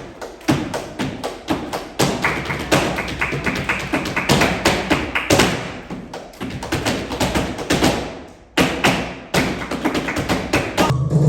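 Background music with a quick run of sharp percussive taps and claps, in a flamenco-like Latin style.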